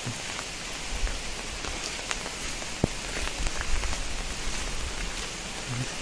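Light monsoon rain falling steadily, with scattered drops ticking and one sharp tick about three seconds in, over a low rumble.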